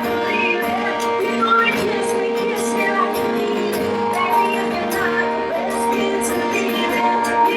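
Live band music playing, with held chords and regular cymbal ticks over a melody.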